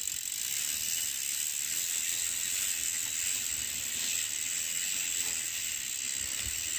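Toothbrush bristles scrubbing along a bicycle chain wet with soapy water as the cranks are turned backwards, with the rear hub's freewheel ticking, a steady hissing scrub with fine clicking.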